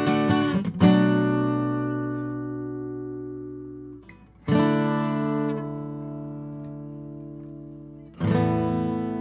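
Acoustic guitar: a few quick strums, then three chords strummed once each, about four seconds apart, and left to ring out and fade.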